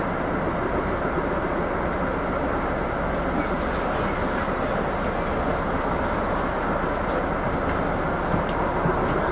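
Steady running noise of a city bus in motion, heard from inside: continuous engine and road rumble, with a high hiss for about three seconds midway.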